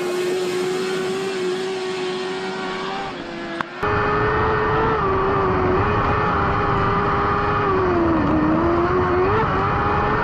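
Semog Bravo sprint buggy's engine held at high revs on gravel, first heard from the roadside as the car slides past, then from on board about four seconds in, louder and with a deeper rumble. Near the end the pitch sags briefly, then climbs back quickly.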